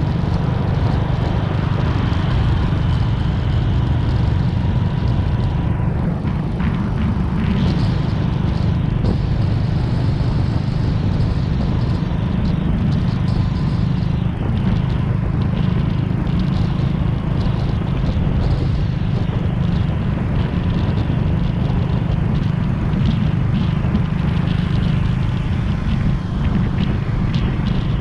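Motorcycles cruising steadily along a road: an even engine drone mixed with heavy wind rumble on the microphone of a moving bike, with no revving or change in speed.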